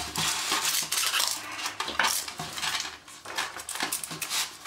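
Unpacking handling noise: the plastic high-voltage probe and its ground lead being picked up and shifted about over polystyrene packing trays, giving irregular clattering knocks, scrapes and rattles.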